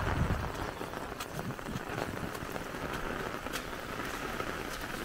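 Steady rain falling, with scattered drops ticking close by, and footsteps on wet, muddy ground.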